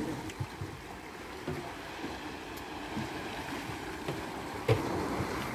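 Sea water lapping around a small open fishing boat, with wind on the microphone. There are a few faint knocks, and a sharper knock near the end is the loudest sound.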